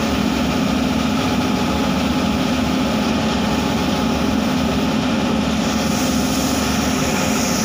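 Steady machine drone of spray-booth equipment with a low hum. About six seconds in, a gravity-feed spray gun adds a hiss as it blows out at the booth wall, flushing the water-based coating out with water.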